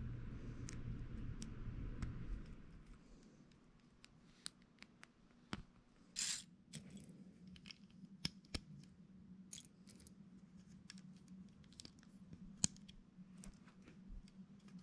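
LEGO plastic bricks being handled and pressed together: scattered sharp clicks and snaps, one loud snap near the end, and a short scrape about six seconds in. A low hum runs for the first two seconds and then stops.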